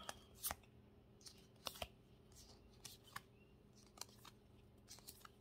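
Pokémon trading cards handled in a stack as they are slid off and flipped through by hand: faint, scattered papery ticks and slides about once a second.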